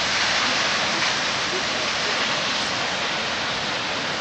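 The steady rush of Kegon Falls, a tall plunge waterfall, heard as a dense, even hiss of falling water.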